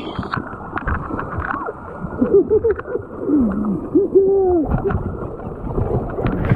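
Muffled rush and splashing of river water around a capsizing inflatable kayak, with the microphone wet or partly underwater, and scattered knocks of the boat and gear. A few short muffled cries rise and fall in the middle.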